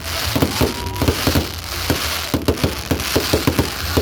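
Fireworks going off: a rapid, irregular string of pops and bangs over a steady crackling hiss.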